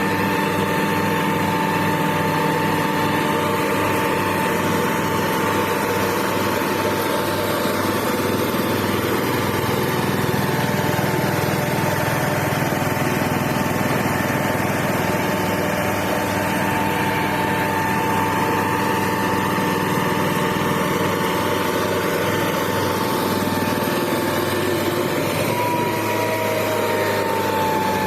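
Hamm road roller's engine running steadily, with a steady high whine over it. The whine wavers in pitch near the end.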